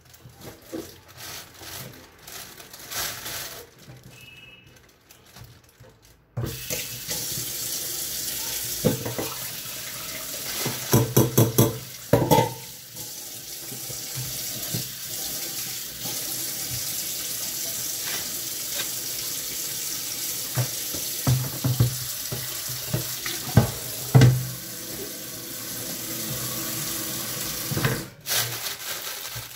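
Kitchen tap running into a stainless steel sink and a plastic bag. It comes on about six seconds in and runs steadily, with a brief break near the end. Before it, the plastic bag rustles and clicks, and a few knocks of handling sound over the running water.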